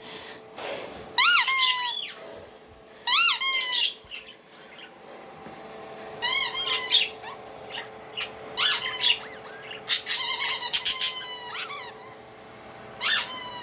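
A squeeze toy squealing about six times, each squeal swooping up and then holding briefly, with budgies chirping faintly in between.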